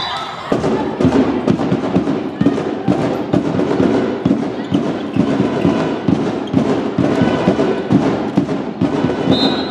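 Loud rhythmic percussion with music, made up of many sharp knocks and bangs that carry on without a break. A short, high referee's whistle blast sounds near the end.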